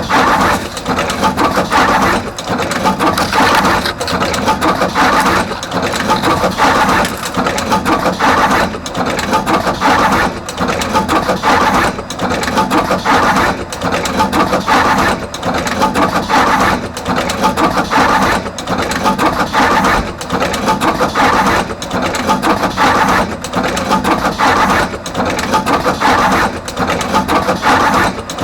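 Artos CR22 automatic wire crimping machine running continuously, crimping terminals onto both ends of each wire. It works in a steady repeating cycle of about one and a half to two seconds, with a brief lull between cycles.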